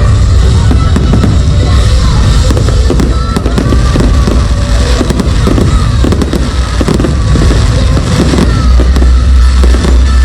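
Fireworks going off in rapid, overlapping bangs and crackles over loud, heavy show music with a strong bass.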